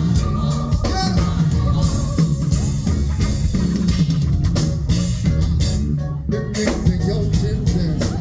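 Live band playing an instrumental passage of a soul-pop song: electric guitar, bass guitar and drum kit keeping a steady beat.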